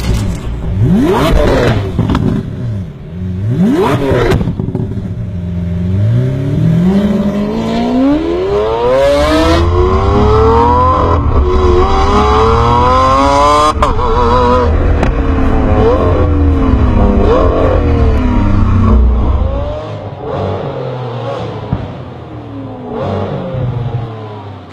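Lamborghini Aventador's V12 engine revving: several quick blips of the throttle, then a long pull climbing in pitch, a shift, and a second climb. The revs then rise and fall more gently, and it goes quieter near the end.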